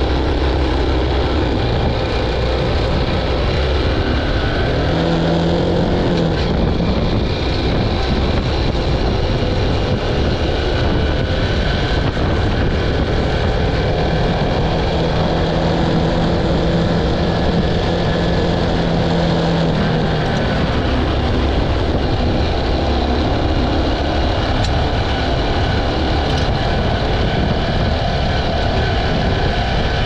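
Honda CT125's single-cylinder four-stroke engine running steadily under way on a dirt track, with an even rush of riding noise over the engine note.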